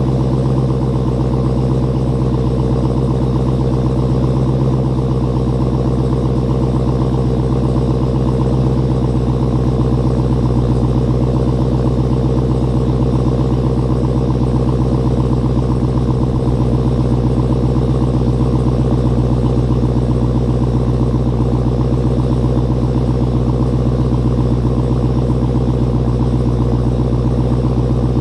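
2016 Dodge Challenger SRT Hellcat's supercharged 6.2-litre HEMI V8 idling steadily through its stock exhaust, still warming up after a cold start.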